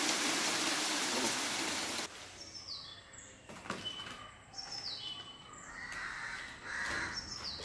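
Heavy rain splashing on wet pavement, cutting off suddenly about two seconds in. Then birds chirping: short calls that sweep downward, repeated a few times over a quiet background.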